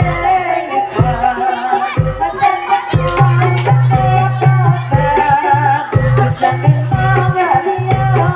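Live Javanese jaranan music: a gamelan ensemble with a drum beat about once a second under a bending melodic line, joined by a low sustained hum from about three seconds in.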